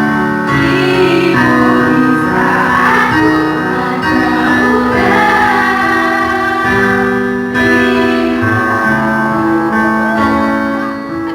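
Song with a singing voice over guitar accompaniment, fading out near the end.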